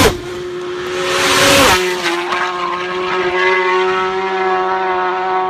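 Racing motorcycles passing at full throttle close by. One goes past at the start and another just under two seconds in, and each engine note drops sharply in pitch as it passes. A steady engine note follows and slowly fades.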